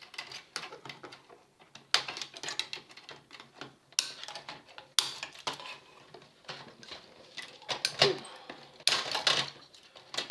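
Scissors snipping through wires and the cassette deck's metal parts and circuit board clicking and clattering as they are worked free by hand: irregular sharp clicks and knocks, several louder ones spread through.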